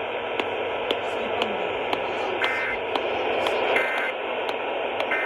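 AM radio static: a steady hiss with regular ticks about twice a second. Through it come three short two-tone data bursts about a second and a half apart, the Emergency Alert System end-of-message code that closes the warning.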